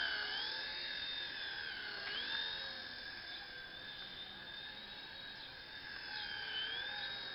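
Small electric remote-control helicopter's motors and rotor whining steadily. The pitch dips and climbs back several times as the throttle changes.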